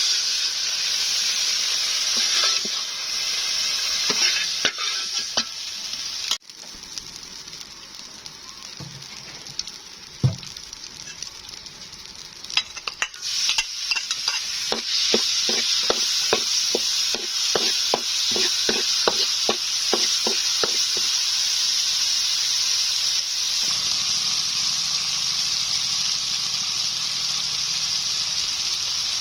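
Food sizzling as it fries in a pan, with a utensil stirring it. After a sudden quieter stretch comes a run of quick, regular utensil strokes, about three a second, and then steady sizzling again.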